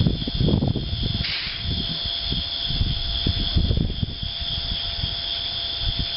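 Irregular low rumbling, like wind buffeting the microphone, over a steady high-pitched hiss.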